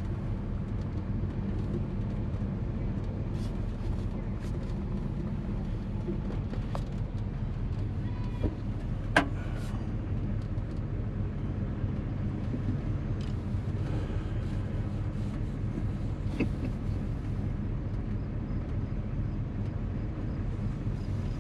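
A 1957 Chevy's engine and road noise heard from inside the car while it cruises at a steady pace: a constant low hum with a few light clicks and knocks, the sharpest about nine seconds in.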